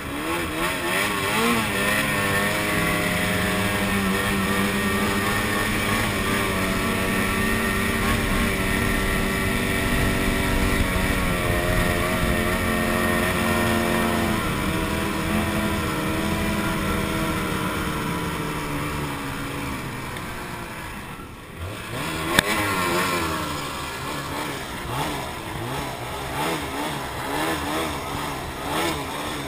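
Snowmobile engine running under power at steady high revs, its pitch wavering slightly, for about twenty seconds; the revs then fall away and a single sharp knock is heard. After that the engine is throttled up and down in short, uneven pulses.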